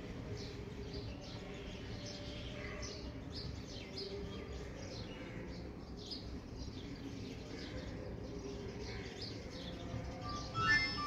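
Small birds chirping in quick irregular calls over a steady low background rumble. Near the end a short tune of electronic beeping tones begins.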